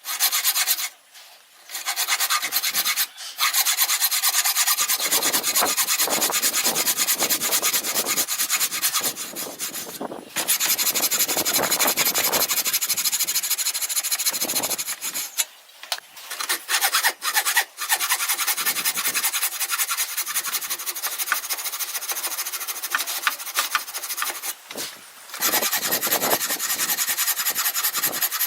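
A hand tool scraping across wood in long stretches of fine, rapid rasping strokes, with a few short pauses between runs.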